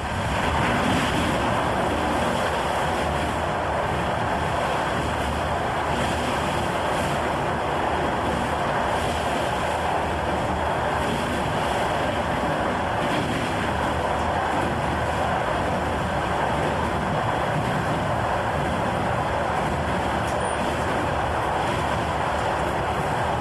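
Steady, unchanging noise of a train in motion, heard from aboard.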